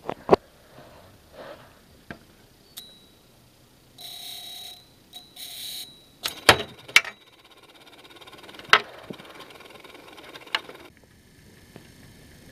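Two short buzzy electronic beeps, about four and five seconds in, among scattered sharp clicks and knocks; the loudest cluster of clicks comes around six to seven seconds in.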